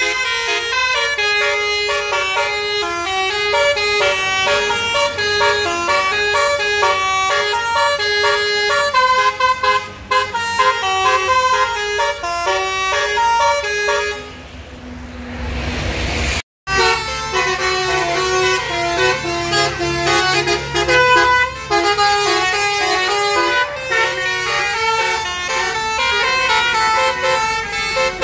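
Bus basuri musical horn with roof-mounted trumpets playing a fast, jaunty melody of short stepped notes, loud and continuous. It breaks off about halfway through and starts again a couple of seconds later.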